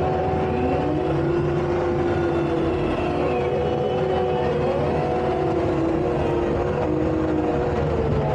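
Tracked skid steer's engine running steadily under load while it works the road base, with a whine that drifts a little up and down in pitch.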